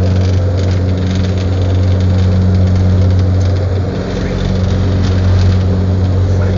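Airliner's engines running with a steady low hum, heard from inside the passenger cabin while the plane taxis.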